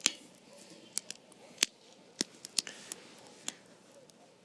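Small campfire of damp firewood crackling, with about ten sharp, irregular pops.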